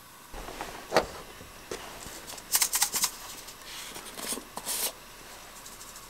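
Cooking things handled over a heater-top pot of ramen: a single knock about a second in, then quick bursts of sharp crinkling and clicking around two and a half seconds in and again near four and a half, over a faint steady hiss.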